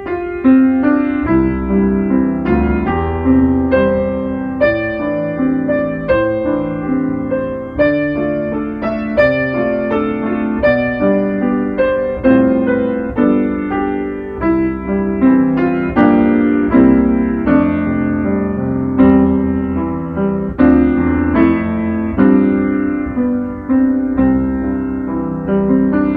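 Solo piano music: notes and chords struck in a steady, moderate rhythm, each ringing and fading under the next.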